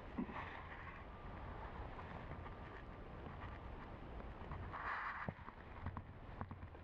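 Low wind rumble on the microphone in the woods, with a few faint, indistinct noises and a brief louder sound about five seconds in.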